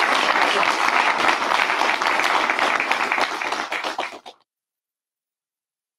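Audience applauding, a dense patter of many hands clapping that cuts off suddenly a little over four seconds in.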